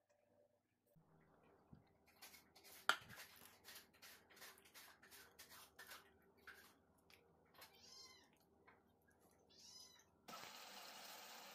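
Faint handling sounds of marinated chicken being threaded onto wooden skewers and laid on a plate: scattered soft clicks and taps, the sharpest about three seconds in. Two short meow-like calls come near the end, and about a second before the end a steady hiss starts abruptly.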